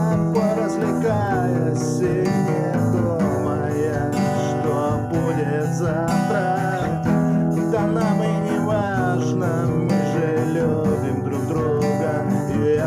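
Music: an instrumental passage of the song led by acoustic guitar, strummed chords under a bending melody line.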